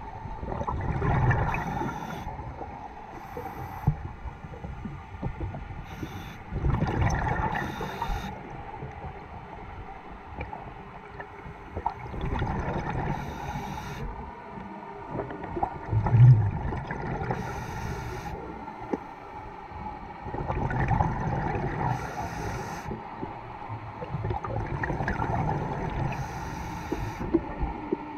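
Scuba diver breathing through a regulator underwater: rumbling bubble bursts of exhaled air come every four to six seconds, with a faint steady whine underneath.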